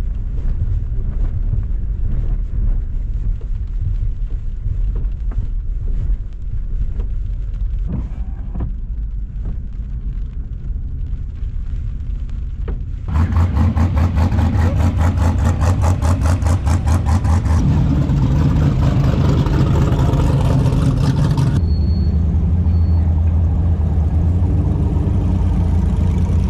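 Toyota Tacoma pickup driving slowly over desert dirt, heard from inside the cab as a low rumble. About halfway through, this gives way to louder background music with a fast beat and deep bass notes that shift twice.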